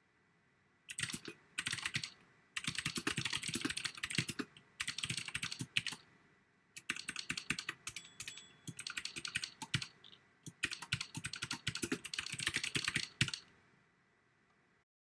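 Typing: rapid key clicks in bursts of a second or two, with short pauses between them, stopping about two seconds before the end.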